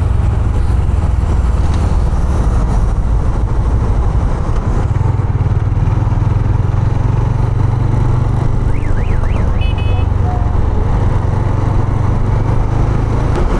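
Honda CB150F single-cylinder motorcycle on the move, its engine running steadily under wind rumble on the microphone. About nine seconds in, a short warbling tone and a few high beeps sound briefly.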